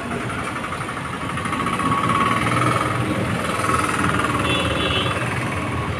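Street traffic passing: motor vehicle engines running, swelling about two seconds in, with a short high-pitched tone a little after four seconds.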